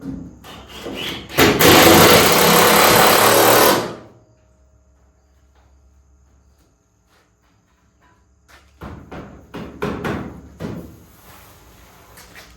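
A power tool runs loudly for about two seconds and stops. Several seconds later come a run of metallic knocks and clunks, as sheet-metal car body parts are handled and fitted.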